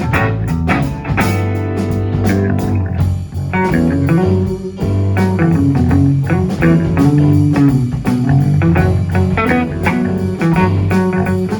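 Band playing a blues-rock instrumental passage: guitar over a walking bass line with a steady beat.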